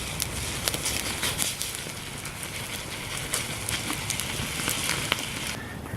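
Stir fry of steak and vegetables sizzling in a pan over a campfire: a steady frying hiss peppered with sharp pops and crackles, which cuts off suddenly near the end.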